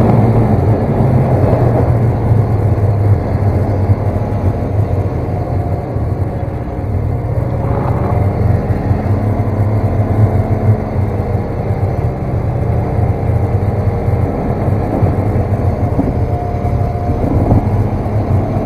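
Snowmobile engine running steadily during a ride, its pitch drifting a little as the throttle changes. It eases off around six seconds in and picks up again near the end.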